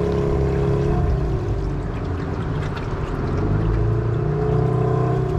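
Small aluminium boat's outboard motor running at low speed, its pitch dropping about a second in and rising again near four seconds as the throttle is eased and opened.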